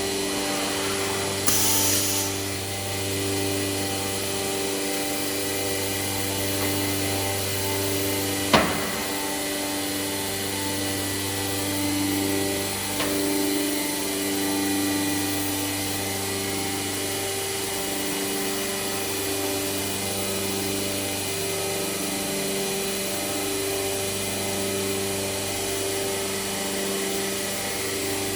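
IMA Bima 400V CNC machining centre running steadily, a hum of several tones that swell and fade slowly. A short hiss comes about a second and a half in, and a single sharp knock, the loudest sound, about eight and a half seconds in.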